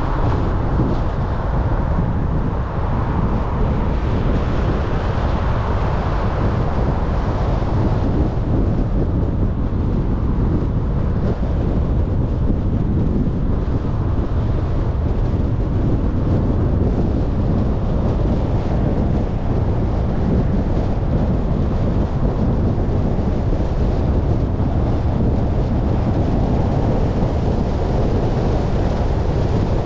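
Steady low rumble of a car driving on city streets: tyre and road noise mixed with wind on the microphone.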